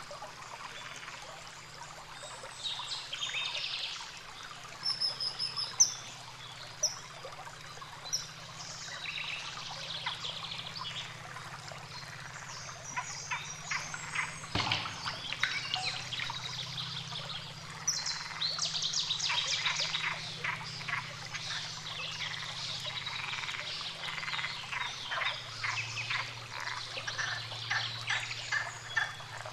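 Outdoor wetland wildlife calls: scattered short high chirps and fast rattling trills, busiest in the second half, over a faint steady low hum. A single sharp knock sounds about halfway through.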